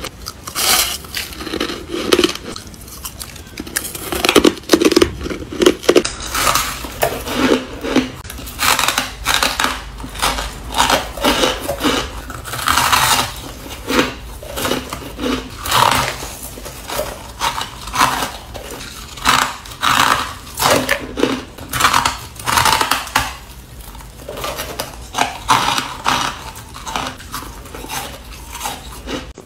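Soft shaved ice being bitten and chewed close to the microphone: a long run of crisp, uneven crunches, several a second, as each mouthful is crushed between the teeth.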